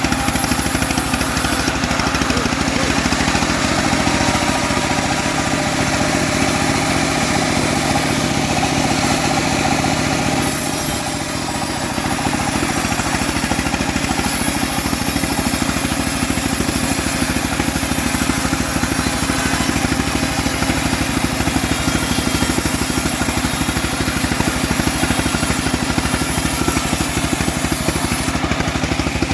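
Engine-driven home-built bandsaw sawmill running steadily. It dips slightly in loudness for about a second around eleven seconds in.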